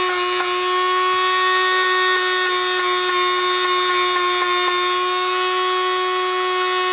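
Handheld rotary tool with a sanding drum running at a steady, unchanging whine as it sands the worn rubber toe of a climbing shoe, roughening the old rubber so a rubber-paste patch will bond.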